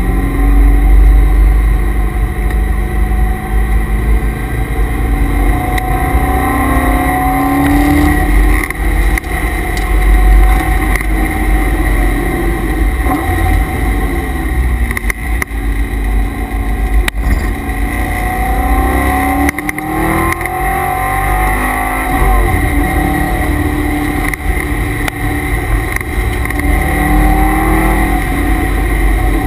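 C5 Corvette Z06's LS6 V8 heard from inside the cabin on track, its pitch climbing again and again under hard acceleration and dropping off for shifts and braking. A steady whine from the car's added transmission and differential coolers runs underneath.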